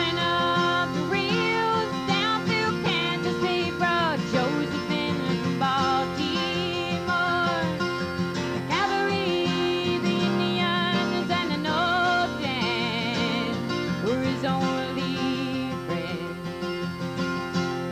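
A woman singing a country-folk ballad over her own strummed acoustic guitar, live through a microphone, holding some notes with vibrato.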